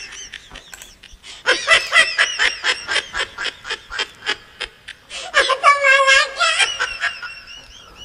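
High-pitched laughter: a fast run of giggles lasting a few seconds, then a longer drawn-out laugh with a wavering pitch near the end.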